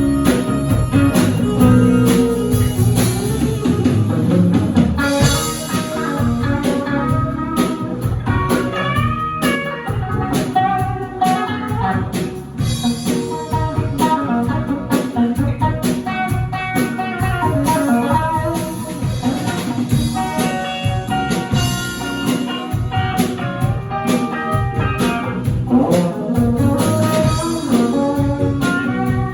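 Live band playing an instrumental passage during a sound check: guitar lines over a drum kit.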